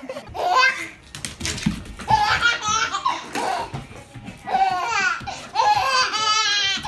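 A baby laughing in several bursts, with short pauses between them.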